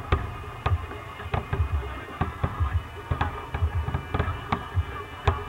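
Aerial firework shells bursting in a dense barrage: sharp bangs about two a second, irregularly spaced, over a continuous low rumble.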